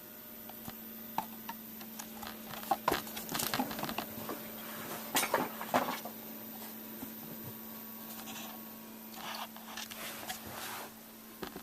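Desktop computer starting up with a steady low hum, among scattered light clicks and clattering knocks, the loudest a few seconds in.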